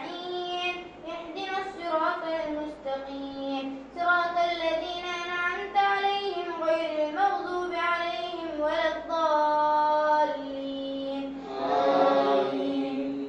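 A boy's voice reciting the Quran in a melodic chant, gliding between long held notes.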